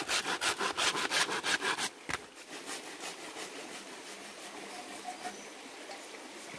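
Hand saw cutting wood in quick, rhythmic short strokes, about seven a second, stopping about two seconds in. After that only a steady background hiss remains.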